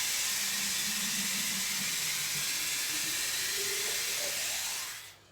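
Water pouring in a steady stream, its pitch rising as the vessel fills, until the pour stops abruptly about five seconds in.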